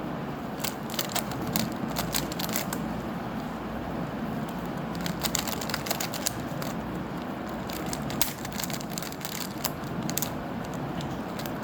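Plastic Rubik's Cube layers being twisted by hand while the last layer's corners are solved: quick runs of clicking and rattling in three bursts with pauses between, over a steady low background noise.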